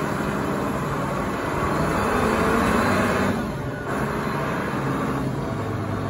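Engine of a large Caterpillar forklift running as the truck drives and turns, a steady engine note with a short dip a little past the middle.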